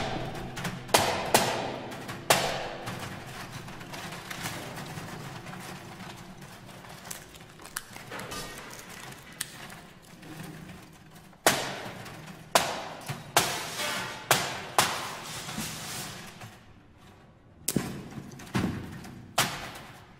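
Live contemporary ensemble music made of sharp, irregularly spaced percussive strikes, each with a ringing decay. There is a cluster of strikes in the first couple of seconds, a quieter dimmer stretch, and then a faster run of strikes in the second half, broken by a short lull.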